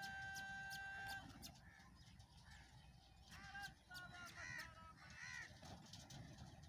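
Faint bird calls: a steady held tone about a second long at the start, then a handful of short, harsh, arching calls in the middle.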